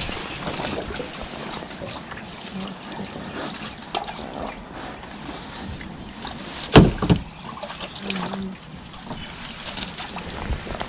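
Handling knocks on an aluminum fishing boat as a landing net is worked over the side: one loud thump a little past halfway and a few lighter clicks, over a steady wash of lake water.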